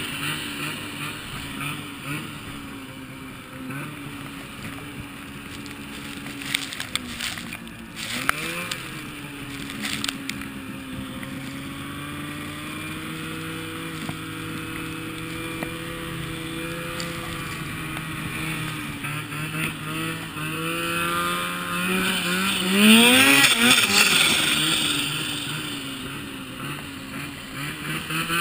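Ski-Doo XM snowmobile engine running as the sled rides through powder, its note holding fairly steady with small changes in pitch. A few sharp knocks about a third of the way in, and about three quarters of the way through the engine revs up quickly and falls back, the loudest moment.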